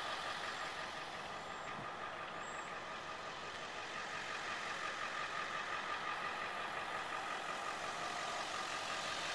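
A pickup truck's engine idling steadily, a little louder toward the end.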